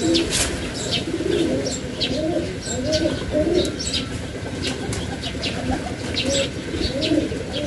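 Pigeons cooing over and over, a string of short arching low calls, with short high-pitched ticks scattered through.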